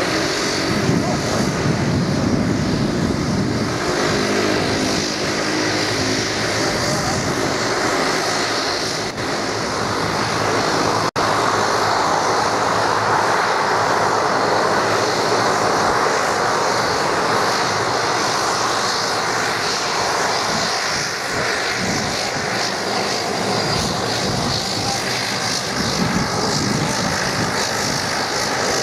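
Dash 8 Q300 turboprop taxiing, its engine and propeller running in a steady drone, with a low propeller hum that is clearest in the first several seconds.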